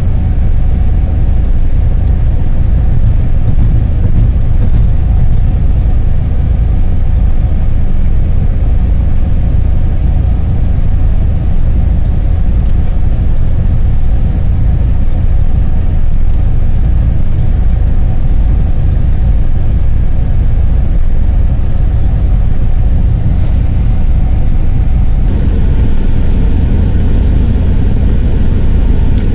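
Steady low road and engine rumble heard inside the cabin of a vehicle driving along a wet highway. The tyre hiss grows a little louder about four seconds before the end.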